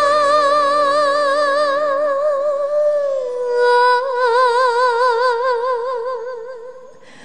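A woman singing a long held 'ah' with a wide vibrato in a Taiwanese Hokkien ballad, over quiet accompaniment that drops away. The note steps down in pitch about three seconds in and fades out near the end.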